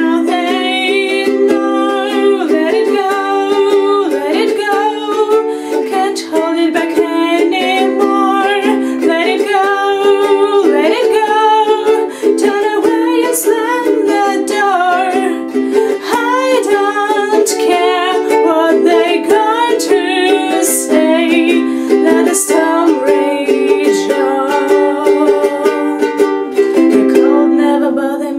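A woman singing a New Year's song while strumming a ukulele.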